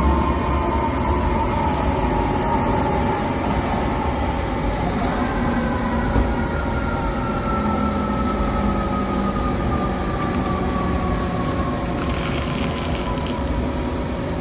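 Fire trucks under way, a siren's tone falling slowly in pitch over the steady rumble of the engines. A short hiss comes near the end.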